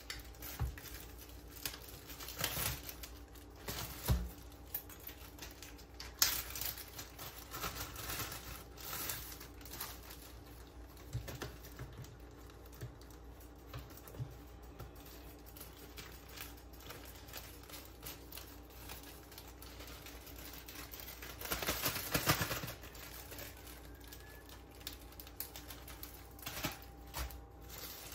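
Plastic packaging crinkling and rustling as it is handled, with scattered light taps and clicks against the countertop and a longer stretch of crinkling near the end.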